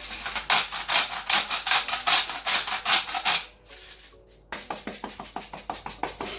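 Hand salt grinder grinding Himalayan rock salt: quick rasping, crunching twists, a run of about three and a half seconds, a short pause, then another run.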